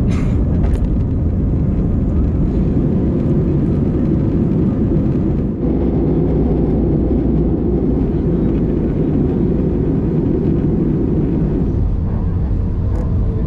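Loud, steady engine rumble, strongest in the low range, with a short dip in level about halfway through.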